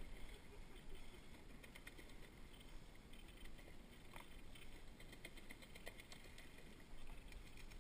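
Near silence: faint steady background noise with a low rumble and a few scattered faint clicks.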